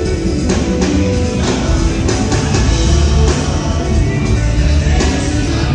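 Live rock band playing loud amplified music, with heavy bass and repeated drum hits.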